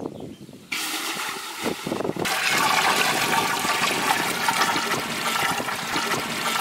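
Water poured from a bucket into a large metal cooking pot: a steady splashing gush into the water already in the pot. It starts about a second in and grows louder about two seconds in.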